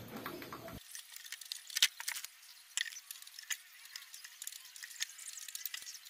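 Faint, scattered sharp clicks and taps of hard plastic as the rotor-position (Hall) sensor block is worked loose from the stator of an LG direct-drive washing machine motor, for replacement as the suspected cause of the drum failing to turn. The loudest click comes about two seconds in.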